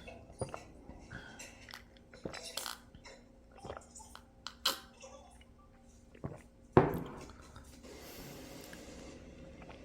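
Eating at a table: chewing with scattered clicks and clinks of cutlery on dishes. About seven seconds in comes a sharper knock that rings on briefly, then a faint hiss for about a second.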